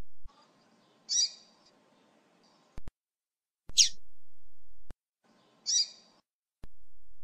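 Female double-collared seedeater (coleiro) giving three single, short, high-pitched call notes about two seconds apart, the middle one a quick downward slur. Faint clicks fall between the calls.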